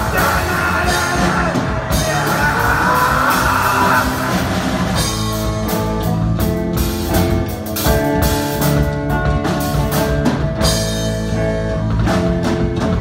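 Live rock band playing an original song: electric guitars over a drum kit. About five seconds in the drums and cymbals come in with dense, hard hits under the chords.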